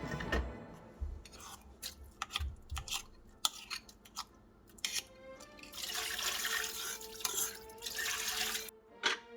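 Kitchen tap water running into a sink for about three seconds in the second half, cutting off sharply near the end, among scattered clinks and knocks of dishes and utensils. Soft background music underneath.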